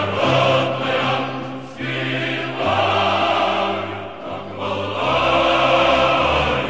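A choir singing slowly, with long held notes over a low bass line.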